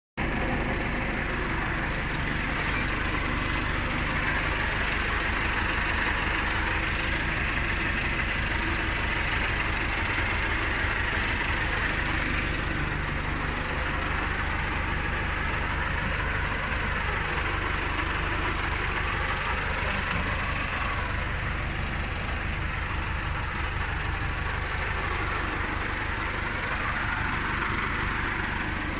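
John Deere 582 Premium round baler running empty off a tractor's power take-off, with the tractor engine running under it: a steady mechanical drone, a work check of the baler.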